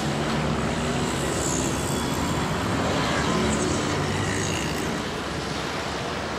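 Street traffic noise: a steady mix of car and motor engines running and passing on a busy city road.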